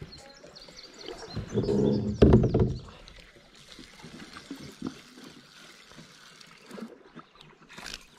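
Water sloshing and trickling against a kayak's hull, with a louder burst a second or two in before it settles to a quieter, steady wash.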